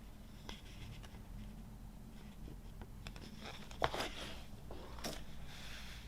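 Vinyl record packaging handled by hand: paper and cardboard rustling and scraping, with a few sharp taps and clicks, the loudest about four seconds in and another about five seconds in.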